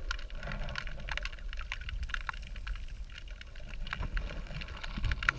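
Underwater river ambience picked up by a GoPro in its housing: a dull low rumble of moving water with many small scattered clicks and ticks.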